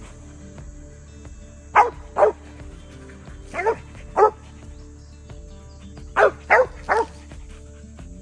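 Mountain cur barking treed at the base of a tree: seven short barks in three bunches, two, then two, then three. It is a tree dog's signal that it has game such as a squirrel up the tree.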